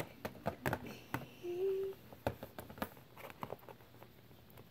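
Small clicks and taps of plastic Littlest Pet Shop figurines being handled and set down on a shelf, busiest in the first few seconds and then fainter, with a short hum about one and a half seconds in.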